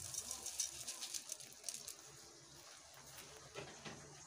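Uncooked rice grains pouring into a pot onto browned vermicelli: a faint patter of many small ticks that thins out after about two seconds.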